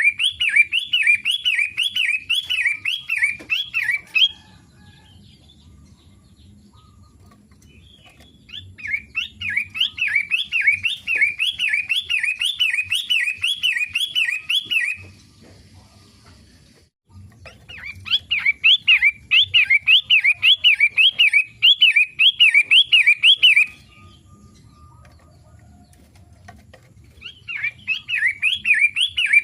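A songbird, which the owner takes for a pentet matahari (a shrike), repeating a quick rising-and-falling chirp about two to three times a second. It comes in four bouts of four to six seconds, with pauses of a few seconds between.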